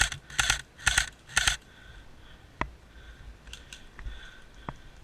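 Airsoft rifle firing four short bursts about half a second apart in the first second and a half, followed by a few scattered sharp clicks.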